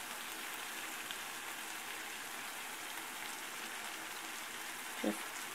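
Pan of diced peppers, tomatoes, onion and potatoes frying on medium heat, with a steady soft sizzle.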